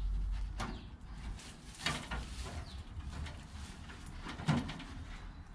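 Goat pen sounds: a few short, faint animal calls, one about two seconds in and another near the end, over a low rumble.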